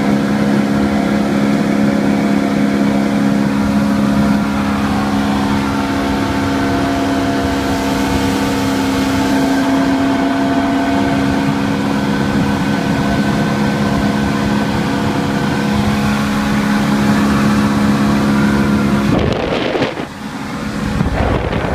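Outboard motor of a freshly tuned-up 2003 Pioneer 175 boat running steadily under way at about 30 mph, a loud even drone. About nineteen seconds in, the drone drops back under wind rush and handling noise on the microphone.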